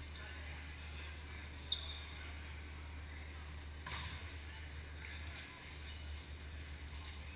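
Indoor volleyball rally: sharp slaps of hands on the ball, the loudest about two seconds in and another about four seconds in, over a steady low hum of the gym and faint distant voices.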